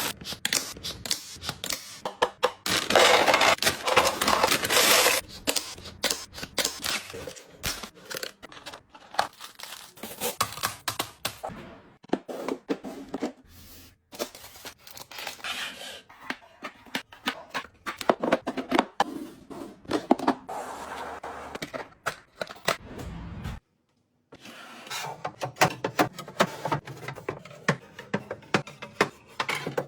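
Close-miked restocking sounds: packaging rustling and tearing, and a stream of clicks and taps as containers and items are handled and set down. A loud rustling stretch comes a few seconds in, and the sound cuts out completely for a moment about three-quarters of the way through.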